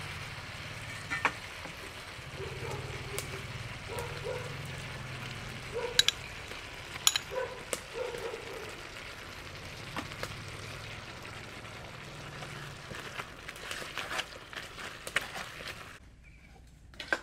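Beef curry sizzling in an aluminium pot while a metal ladle stirs it, with sharp clinks and scrapes of the ladle against the pot, loudest about six and seven seconds in. The sound drops to a quieter background near the end.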